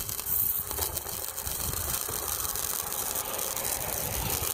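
MIG welding arc crackling steadily as a bead is run. The current is set too high, so it is burning holes through the metal.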